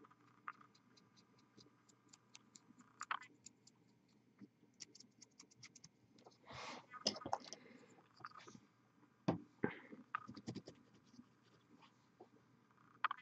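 Faint, scattered scratching and ticking from fingers and a fine paintbrush working on a small plastic miniature, with a few sharper clicks.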